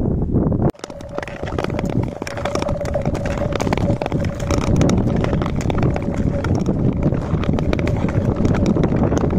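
Ice skates gliding and scraping over clear natural ice, with many short clicks from the blades and wind buffeting the microphone. A faint steady tone sounds from about a second in for several seconds.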